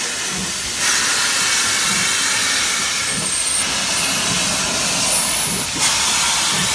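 Steam hissing loudly from the open cylinder drain cocks of SNCF 140 C 38, a 2-8-0 steam locomotive, as it starts away. The hiss swells about a second in and dips briefly near the end.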